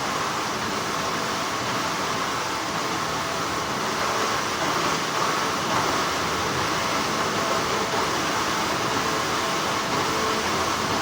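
Steady, continuous hum of textile factory machinery, an even wash of noise with faint steady tones.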